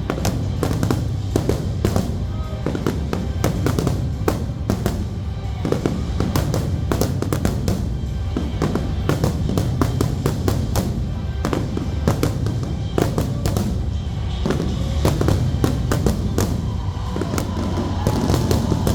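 Pyromusical fireworks display: many aerial shells bursting and crackling in quick succession over a deep rumble, with the show's music playing over loudspeakers.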